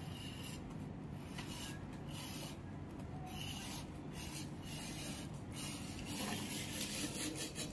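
Carpet edge being rubbed and pressed into a metal edge strip by hand, with a run of irregular rasping, scraping strokes, one or two a second.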